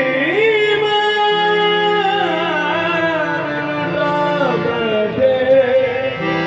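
Live qawwali: harmoniums sounding steady chords while a singer holds a long, wavering note.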